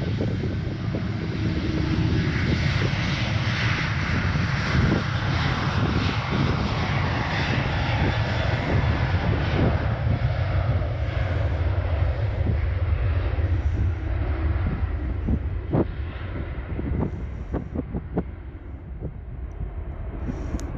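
Jet2 Boeing 737's jet engines at take-off thrust on its take-off roll along a wet runway. The loud roar builds over the first few seconds and fades in the second half as the aircraft speeds away. Wind rumbles on the microphone, with a few knocks near the end.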